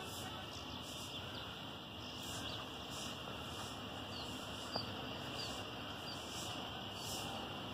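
Outdoor ambience: a steady high-pitched hiss with a soft pulse about every two-thirds of a second, a few short faint chirps, and one small click about five seconds in.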